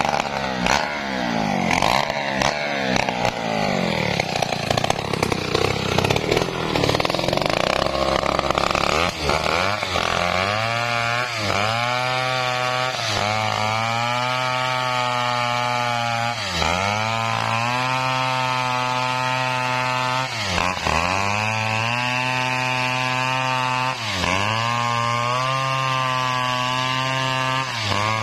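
Chainsaw cutting a coconut trunk. For the first ten seconds or so the engine note wavers under load; after that it runs steadily at high speed, sagging briefly and recovering about every four seconds as the chain bites into the wood.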